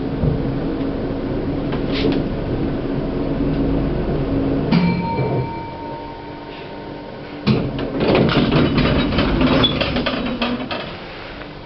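Old Platt Schindler lift running with a steady hum. About halfway there is a click with a brief ringing tone. About two-thirds in comes a loud clunk, then a few seconds of rattling clatter.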